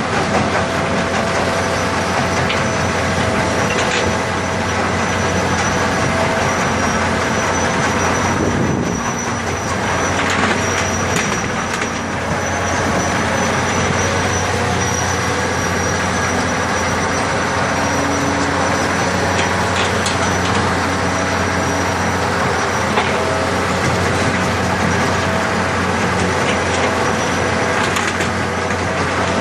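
A very big digging machine running steadily and noisily, with a thin high whine above its engine and scattered knocks and clanks.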